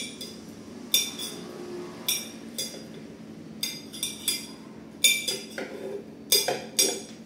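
Metal spoon clinking and scraping against a ceramic plate as banana slices are pushed off it, about ten sharp ringing clinks at irregular intervals.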